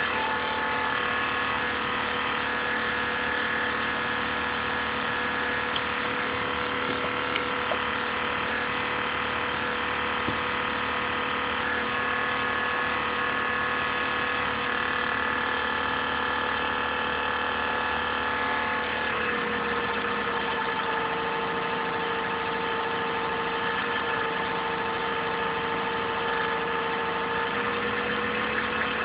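INSYS GameForce laptop cooling fan running with a steady whirring hum made of several tones, the strange noise that the owner considers abnormal. About two-thirds of the way through, the pitch of the tones shifts slightly. Recorded through a phone, somewhat distorted.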